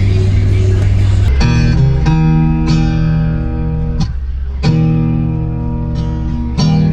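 Loud music with plucked guitar over heavy deep bass, played through a car audio system's subwoofers. About a second in, a droning low note gives way to the guitar part.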